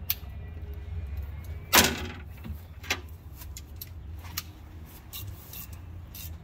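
Scattered small metal clicks and clinks of a hand socket tool being handled and fitted, the loudest a sharp clack about two seconds in, over a steady low hum.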